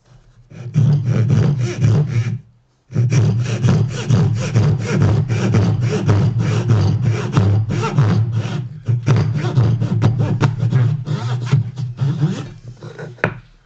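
Hand dovetail saw cutting into hardwood held in a vise, in quick back-and-forth strokes of about four or five a second, with a short pause about two and a half seconds in. The workpiece vibrates in the vise as it is sawn.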